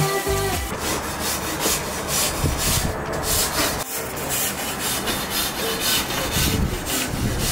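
Scrubbing strokes on a gas grill's cooking grates, about three a second, a rough back-and-forth scraping as the barbecue is cleaned. A tail of background music fades out in the first second.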